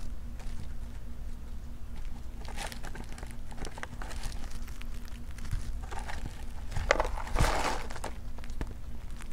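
Pet rat rustling and scratching at a cardboard cereal box, with scattered small clicks and a louder burst of rustling about seven seconds in, over a low steady hum.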